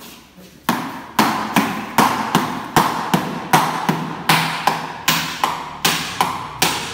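Small hammer striking, fixing cut-out wooden letters to a painted signboard: a steady run of sharp blows, about two or three a second, each with a short ring, starting a moment in.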